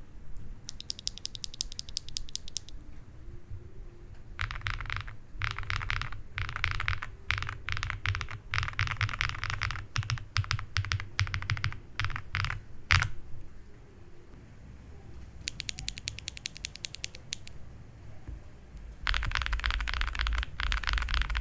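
Typing on an ikki68 Aurora R2 mechanical keyboard with factory-lubed Invokeys Matcha Latte switches and GMK Olivia clone keycaps: quick runs of key clacks in bursts, with short pauses between them. Near the end it switches to the same board with factory-lubed Blueberry Chiffon switches, which sound louder and deeper.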